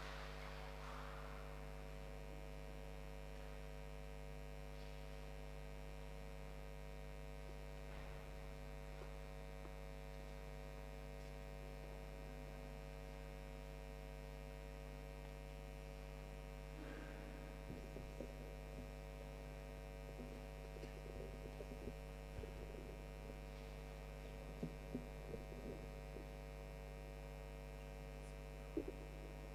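Steady electrical mains hum. From a little past halfway through, faint scattered knocks and clatter join it.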